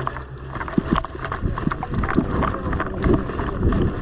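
Footsteps of a player moving quickly over rough ground, an irregular run of knocks and thuds, about three to four a second, with gear rattling.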